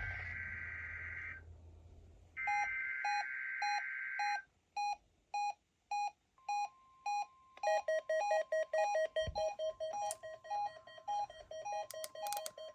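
NOAA Weather Radio SAME header data bursts, the buzzing digital tones that announce the weekly test, heard twice and ending about a second and a half in and about four and a half seconds in. Electronic alert beeping starts during the second burst at about three beeps a second. A faint steady tone joins at about six seconds, and a second, faster series of beeps comes in at about seven and a half seconds.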